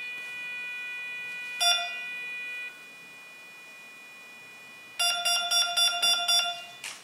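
Power-up beeps from an electric RC plane's speed controller, sounded through the motor: a held tone with a short beep about a second and a half in, then a rapid run of about ten short beeps near the end.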